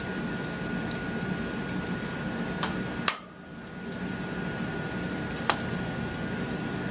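Scattered sharp clicks and knocks from a scarlet macaw working at nuts with its beak through the cage bars, the sharpest one about three seconds in, over a steady fan-like hum.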